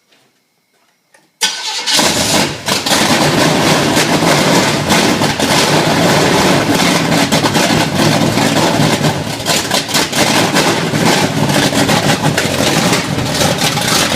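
Rebuilt Chevy 350 small-block V8 with a Comp 292H cam fires up about a second and a half in and runs loud: its first start after the rebuild.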